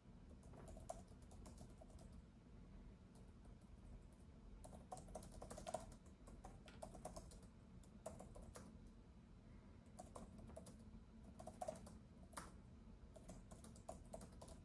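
Faint typing on a keyboard: irregular runs of soft key clicks with short pauses between them, over a steady low background hum.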